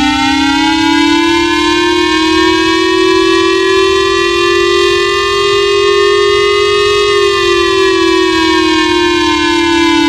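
Japanese J-Alert warning siren: one long siren tone that slowly rises in pitch over the first few seconds, holds, then falls again from about seven seconds in.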